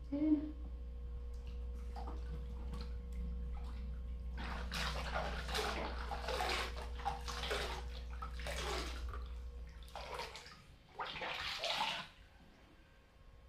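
Water splashing and sloshing in a small pool as a baby monkey plays in it, in irregular bursts, the longest run from about four and a half to nine seconds in and a last burst about eleven to twelve seconds in.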